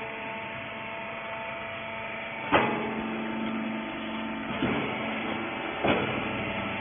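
Cloth baler press's motor running with a steady hum, with three sharp knocks, the first and loudest about two and a half seconds in.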